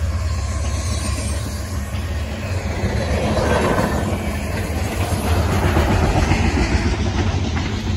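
Freight cars loaded with trash containers rolling past close by: the steady noise of steel wheels running on the rails. A deep low rumble eases after about two seconds, and the wheel noise grows louder from about three seconds in.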